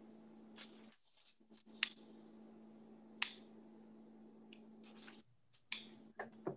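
Scattered sharp clicks at a computer, about four clear ones with fainter ticks between, over a low steady hum that cuts in and out.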